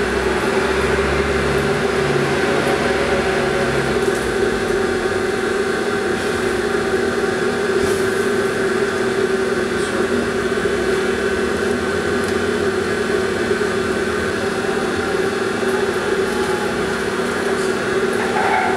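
A steady mechanical hum with a few faint ticks.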